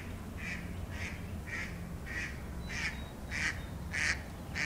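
A bird flying overhead and calling over and over, about two calls a second, the calls growing louder toward the end.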